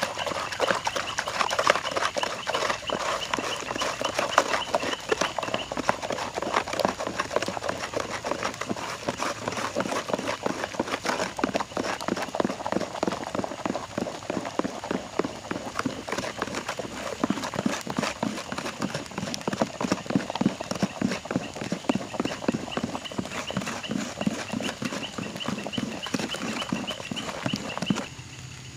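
Wooden stick stirring soapy water briskly in a plastic bucket, whipping it to a froth: fast, rhythmic sloshing strokes that stop abruptly near the end.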